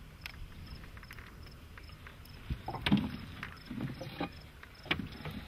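Scattered light knocks and thuds of handling in a fishing boat, with crickets chirping faintly and steadily in the background.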